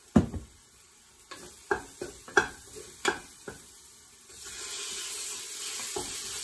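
Raw beef pieces tossed into a hot pressure cooker pot and stirred with a wooden spoon: a run of sharp knocks over the first few seconds. From about four seconds in, a steady sizzle as the meat starts frying in the oil with the garlic.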